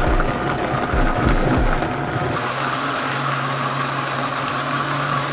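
High-powered countertop blender motor running at full speed, churning a thick load of tomatoes, vegetables and soaked bread into gazpacho. It pulses low and unevenly at first, then about halfway through settles into a steady hum with a high whine as the mixture turns smooth.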